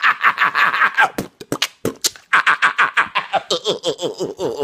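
A man laughing hard and exaggeratedly: loud, rapid bursts of cackling, several a second, each dropping in pitch, thinning out briefly about a second in before picking up again.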